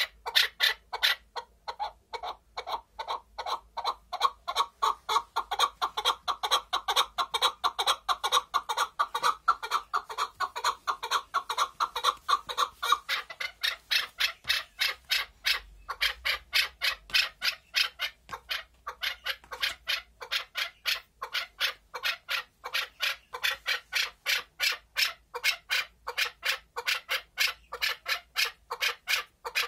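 Chukar partridge calling, a long, steady series of short, sharp chuk notes repeated several times a second, with only a couple of brief gaps near the middle.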